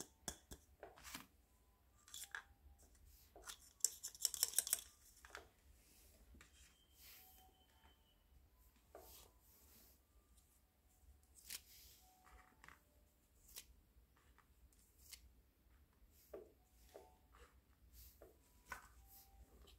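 Small plastic toy kitchen pieces being handled and set down: scattered light clicks and taps, with a quick run of rapid clicks about four seconds in, the loudest part.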